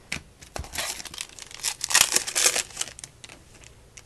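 Crinkling and rustling of a foil trading-card pack wrapper being handled, with a few light clicks; the rustle builds from about half a second in and dies away by about three seconds.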